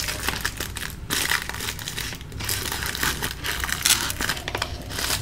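Small clear plastic bag of screws and wall plugs being handled, the plastic crinkling in an irregular run of crackles.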